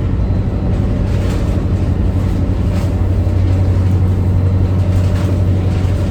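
Boat diesel engines running, a loud, steady low drone, with a few faint brief clatters over it.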